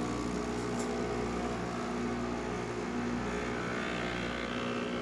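Breville Barista Express espresso machine's vibratory pump running with a steady hum as it pulls a double shot, building full brew pressure normally.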